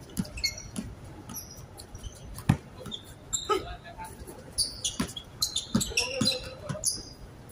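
A basketball being dribbled on an outdoor hard court, with irregular bounces, the loudest about two and a half seconds in. Sneakers squeak briefly on the court surface between the bounces.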